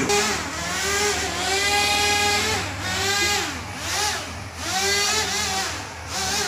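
Small electric fan motors of a toy RC hovercraft whirring, their pitch rising and falling again and again as the throttle is worked.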